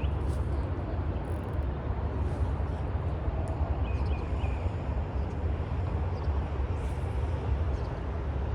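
Steady low outdoor rumble with a faint background hiss and a few faint, short high chirps about four seconds in.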